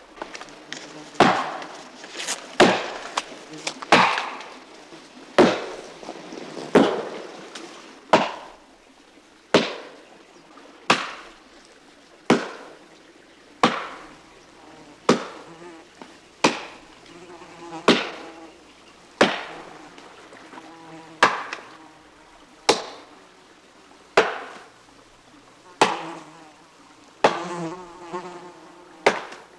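An axe chopping into the trunk of a birch tree, one sharp strike about every second and a half in a steady rhythm, wood chips splitting off with each blow. An insect buzzes faintly between the strokes.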